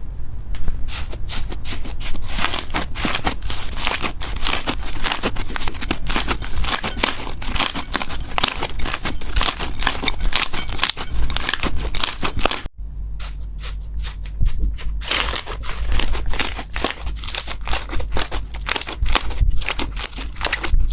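Slime being worked and played with, giving a dense run of crackles and small pops, with a brief break about two-thirds of the way through before the crackling goes on.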